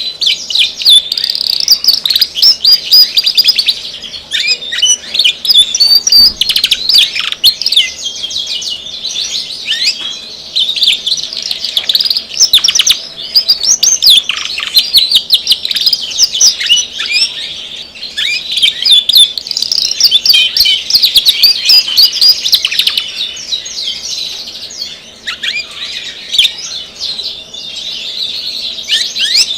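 Domestic canary singing a long, continuous song of fast trills and chirps with quick pitch sweeps, pausing only briefly a few times.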